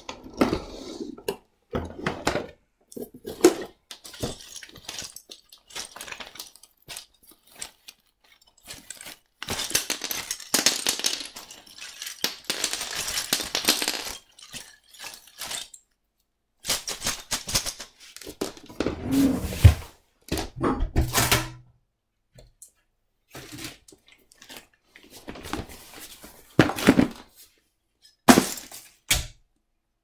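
Plastic clicks, knocks and thuds with stretches of rustling as a canister vacuum cleaner is opened and its full paper dust bag is pulled out and dropped into a plastic bin bag. The vacuum's motor is off.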